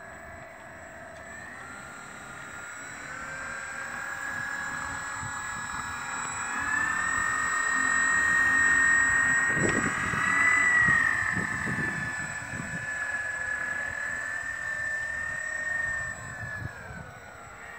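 Twin Scorpion SII-3020 brushless electric motors of an RC Twin Otter model plane spinning up their propellers to a steady high whine, the two motors' tones slightly apart. The throttle is held for several seconds, nudged up briefly midway, and eased back near the end.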